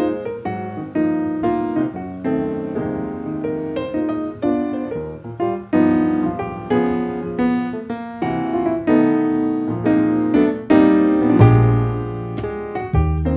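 Background piano music: a steady run of struck notes, with deeper bass notes coming in near the end.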